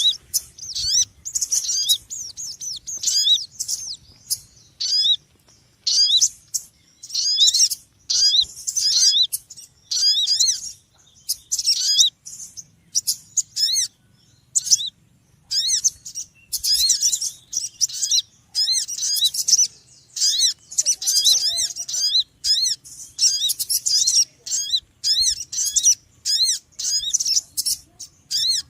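Small songbirds chattering: bursts of rapid, high-pitched chirps, each burst a quick run of repeated notes, following one another with short gaps.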